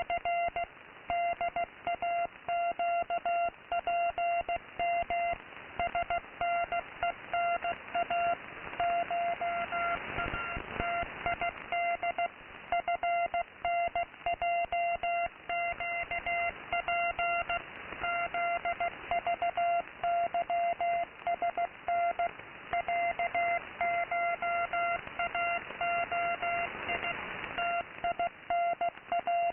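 Morse code from an unidentified shortwave station on 15750 kHz, received in AM mode: a tone of about 700 Hz keyed on and off in dots and dashes over steady radio static hiss. The hiss swells briefly twice, about ten seconds in and again near the end.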